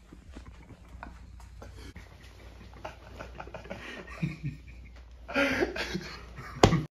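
Bedsheets rustling as people shift in bed, then a louder burst of breathy voice sounds a little after five seconds and a sharp knock just before the sound cuts off.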